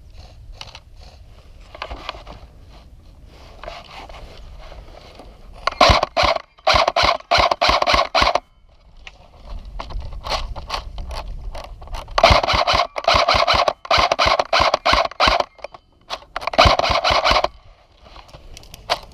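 Airsoft gun firing in three rapid strings of shots, about six, twelve and sixteen and a half seconds in, with the mechanism clacking on each shot.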